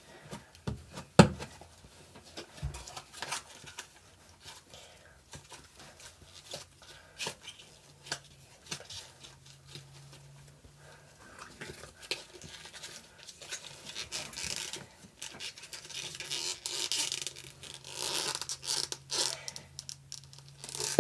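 Cloud slime being stretched and drizzled by hand for ASMR: soft crackling, tearing and squishing with many small clicks and pops, denser in the last few seconds.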